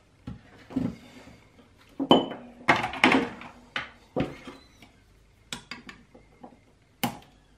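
Hand tools clicking and clattering on a workbench as a soldering iron and solder spool are set down and side cutters picked up, the busiest clatter in the middle. Near the end comes a single sharp snip as the side cutters clip a soldered capacitor lead.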